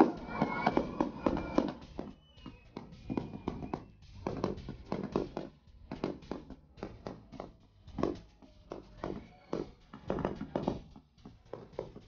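Fireworks exploring overhead: irregular bangs and crackling pops with short echoes, a fraction of a second to a second apart, and faint whistles in the first couple of seconds.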